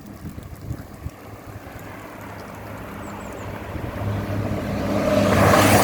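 A train approaching on the line, its running noise building steadily louder, with a steady low hum under a growing rush that is loudest at the end.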